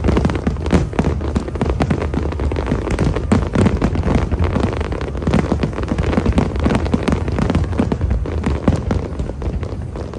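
Aerial fireworks display at full intensity: rapid, overlapping booms and crackling bursts without a break, over a constant low rumble.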